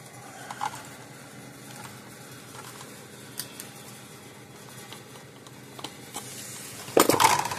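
Faint small clicks and scrapes of needle-nose pliers squeezing a spade connector tight onto a capacitor's terminal tab, then a louder clatter about seven seconds in.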